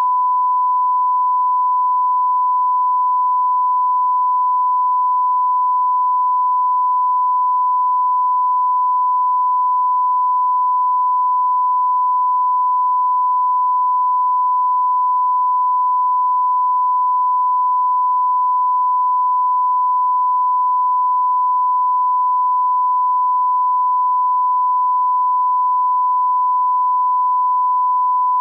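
Broadcast line-up test tone: a single steady, unbroken pure tone at 1 kHz, the reference tone that runs with colour bars for level alignment.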